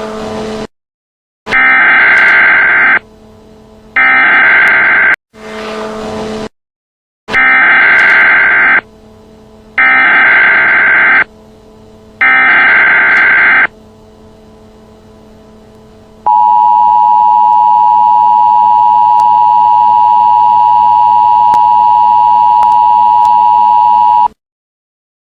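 Emergency Alert System tones: a run of loud, evenly spaced digital data bursts of a bit over a second each (the SAME header), then about 16 s in the steady two-tone attention signal, held for about eight seconds before it cuts off. Together they introduce a National Weather Service tornado warning.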